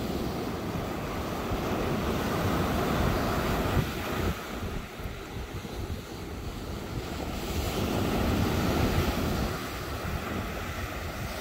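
Ocean surf breaking and washing up the beach, swelling and easing, with wind rumbling on the microphone.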